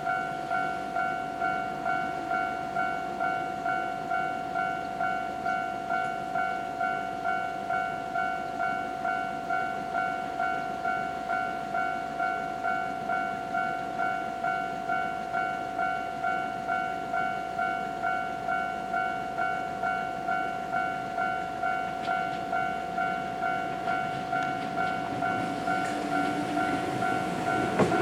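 Japanese level crossing's electronic warning bell ringing steadily, about one and a half strokes a second. Near the end the rumble of an approaching train rises under it.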